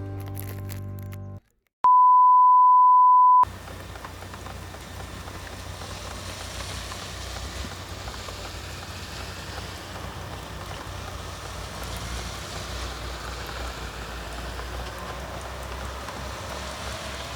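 Music cuts off, then a loud, steady single-pitch electronic beep sounds for about a second and a half. It is followed by the steady hiss of rain falling.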